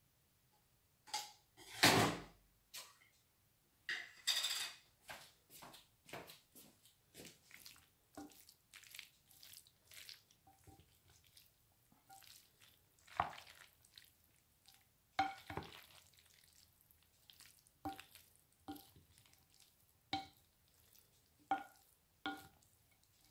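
Wooden spoon stirring and tossing mayonnaise-coated macaroni salad in a large glass bowl: irregular soft scrapes and knocks, some taps against the glass ringing briefly.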